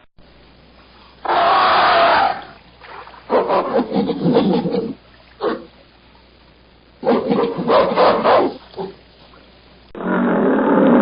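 An animal roaring in several rough bursts of a second or two each, with short pauses between them.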